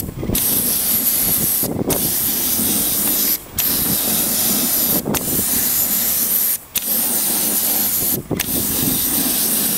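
Spray gun on a long extension wand hissing as it sprays acrylic latex roof coating onto roof tiles, in steady passes that stop briefly about every second and a half when the trigger is let go.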